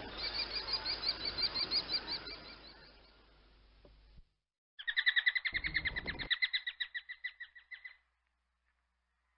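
Common kestrel calling: two bouts of rapid, repeated high-pitched notes. The first fades out over a background hiss. After a brief gap the second, louder bout comes in, with a short low rumble under it, and stops about two-thirds of the way through.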